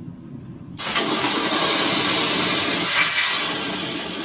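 Compressed air hissing out of a trailer air-suspension hose just cut between the leveling valve and the air bag. It starts suddenly about a second in, blows steadily, and eases slightly near the end.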